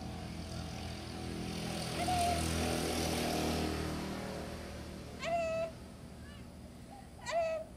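A dying orange tabby cat giving short, strained meows, three calls about two to three seconds apart, the last two loudest, each rising then holding a level pitch. A low background rumble swells and fades under the first call.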